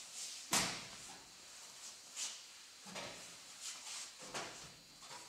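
A sharp knock about half a second in, then several softer knocks and scrapes at uneven intervals.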